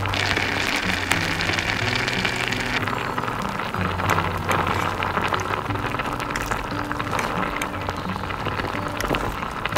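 Food sizzling and crackling in a small hot pan, with background music of held low notes underneath.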